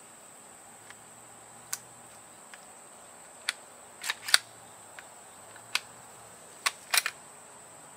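Irregular metallic clicks and clacks of an FK BRNO PSD pistol being reassembled by hand with its 7.5 FK barrel and slide. The loudest clacks come about four seconds in and again near seven seconds.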